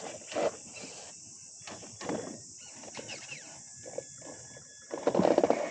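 Radio-controlled car with a brushed electric motor, throttled in short bursts as its wheels churn to get free; the brushed motor lacks the torque to pull it out. The loudest burst comes near the end.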